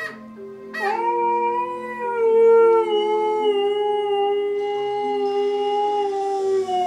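Husky puppy howling: a short call at the start, then one long howl, held nearly six seconds, that slowly falls in pitch toward the end.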